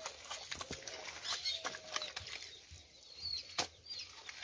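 Wet adobe mud worked by hand into a wooden mould: repeated soft wet slaps and squelches as it is pressed and packed, with one sharper slap a little past halfway.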